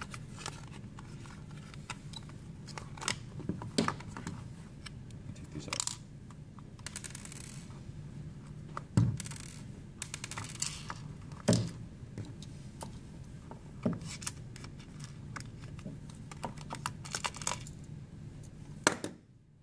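Handling noise from reassembling an electric can opener: light clicks, taps and rustles of the plastic housing and cord being fitted together, and a multi-bit screwdriver being picked up, with a few sharper knocks spread through.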